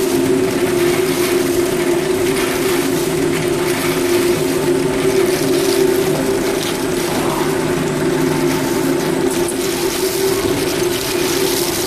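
Snack-frying production line running: a steady machine hum of several constant tones over an even hiss, with no change in speed or load.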